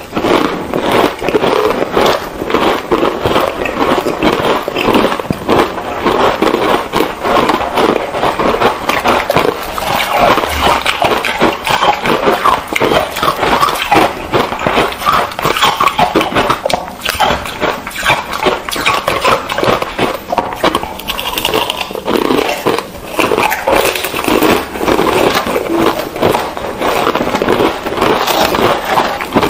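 Close-miked crunching and chewing of hard ice and foam ice coated in green powder, two eaters' sounds layered together into a dense, continuous crackle of bites.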